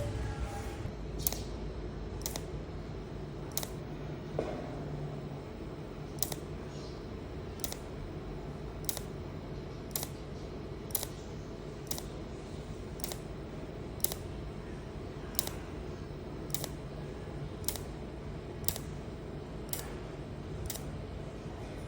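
TIG welding on metal gutter stock: a steady low hum with a sharp click about once a second.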